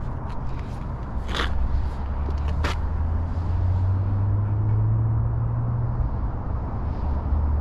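A 2018 Jeep Wrangler Sahara's engine idling with a steady low hum; the idle rises slightly about three seconds in and settles back about three seconds later. Two light clicks come early in the hum.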